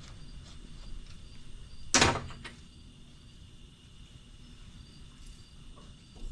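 A single sharp knock with a brief scraping tail about two seconds in, the loudest thing here, with a few faint small clicks of hand tools and parts being handled around it.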